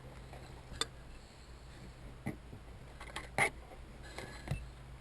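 A few scattered light clicks and knocks, the loudest a short clatter a little past halfway, over a faint steady hum, as a seat-mount clip is worked by hand to find which way it opens.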